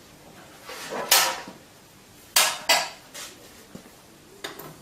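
A few sharp metallic clinks and knocks from hand tools being handled against a metal vacuum pump: four distinct strikes, one about a second in, two close together past the middle, and one near the end.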